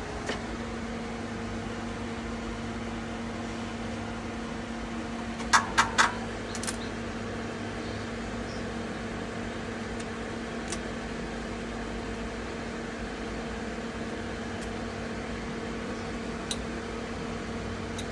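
A steady mechanical hum with a low, even tone, and three sharp clicks in quick succession about six seconds in, with a few fainter ticks later.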